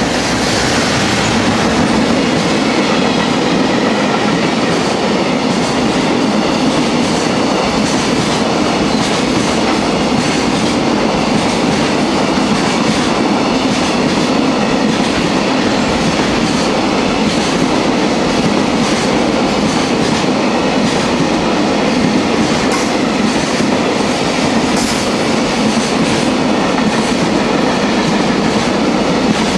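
Long container freight train hauled by a JR Freight EF210 electric locomotive passing without stopping: a steady rumble and clatter of wagon wheels on the rails. The sound swells over the first two seconds as the locomotive goes by, then holds steady.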